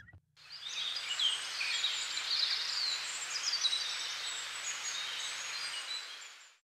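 Outdoor nature ambience: many small birds chirping in quick, overlapping calls over a steady hiss, fading in just after the start and fading out near the end.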